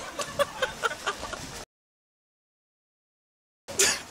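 A person laughing in quick repeated bursts, then the sound drops out completely for about two seconds before a sudden loud burst near the end.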